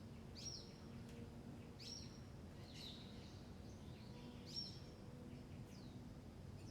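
Faint birdsong: a bird repeating a short, high chirp with a quick downward sweep about every second or so.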